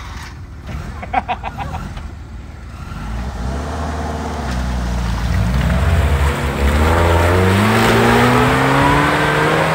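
Off-road 4x4's engine revving under load as it climbs through deep mud. Its pitch climbs from about three seconds in and stays high and loud near the end.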